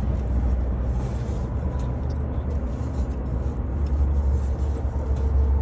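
Ford F-750's 7.3-litre gas V8 idling with a steady low hum.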